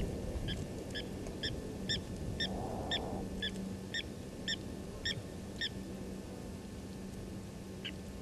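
A series of short, evenly spaced, honk-like animal calls, about two a second, repeated a dozen times and then starting again near the end, over a steady low hum.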